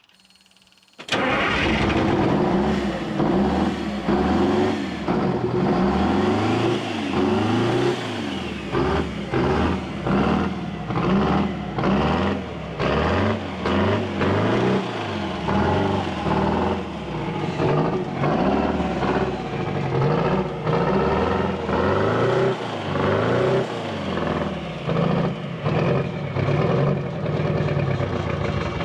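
Detroit Diesel 8V92 two-stroke V8 fires up about a second in and keeps running, its revs rising and falling over and over.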